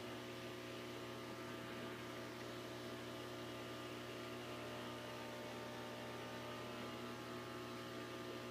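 Steady electrical hum of aquarium equipment: a low, even drone with several steady tones above it and faint hiss, unchanging throughout.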